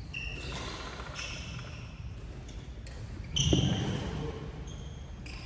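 Sports shoes squeaking on a wooden indoor court during badminton footwork: several short, high squeaks, the loudest about three and a half seconds in, together with a heavy footfall thud.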